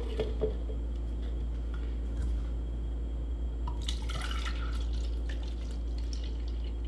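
Coffee poured from a bottle into a clear blender cup, a liquid splash and gurgle starting about four seconds in and lasting a second or two. A few light knocks near the start as the cup is set on the counter.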